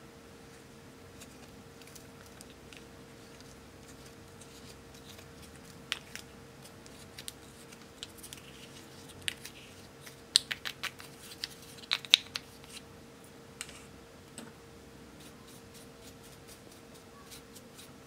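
Small plastic spatula scraping and tapping pressed powder makeup out of a plastic compact: scattered sharp clicks and scrapes from about six seconds in, thickest and loudest around ten to twelve seconds, then thinning out.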